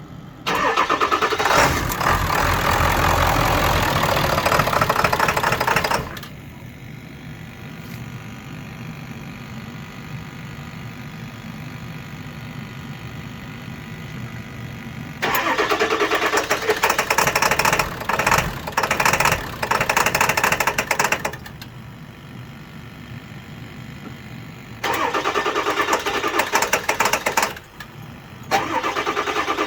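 7.3-litre V8 engine running with an intermittent rough idle, typical of one that sometimes stalls. It swings several times between loud spells of a few seconds each and quieter, steadier idling.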